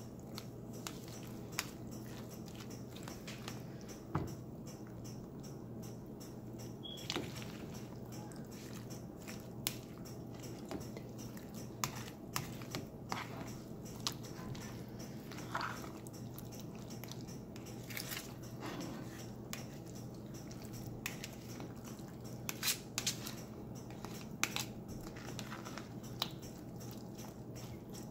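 Metal spoon stirring diced pineapple salsa, wet with honey and lime juice, in a plastic bowl: irregular wet squelches and crunches with sharp clicks of the spoon against the bowl. A steady low hum runs underneath.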